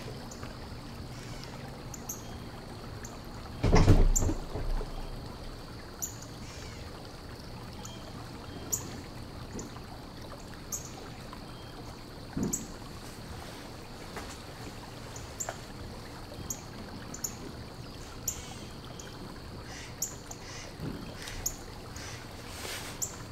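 Stainless-steel cage panels and loose bolts being handled during assembly: scattered light clicks and taps of metal parts over a steady low background hum, with one louder clatter about four seconds in.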